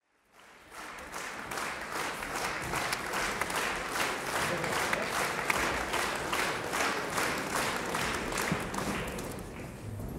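Concert-hall audience applauding: dense clapping that swells up about half a second in, with a beat of about two claps a second running through it, and thins out near the end.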